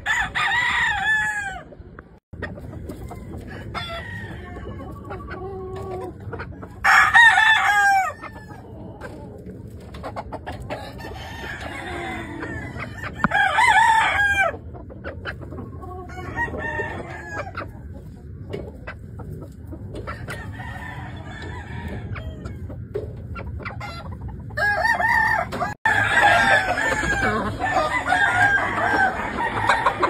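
Gamefowl roosters crowing again and again: loud crows every several seconds, with fainter crows from other birds between them and several roosters crowing over one another near the end.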